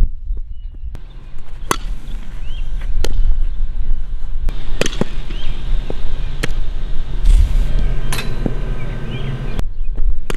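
Several sharp pops of a softball striking gloves and bat, about one every second and a half, over a steady rumble of wind on the microphone.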